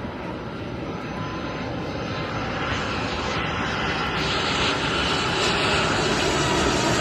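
Jet airliner's engines, a steady roar growing steadily louder as the aircraft comes closer.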